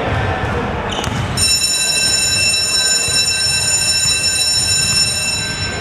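Basketball scoreboard buzzer sounding one long, steady, shrill tone for about four seconds, starting about a second and a half in.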